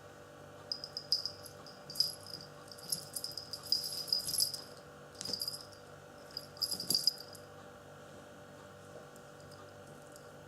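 A small jingle bell rattling in irregular bursts for several seconds, in the way a bell jingles when a cat moves or plays with it.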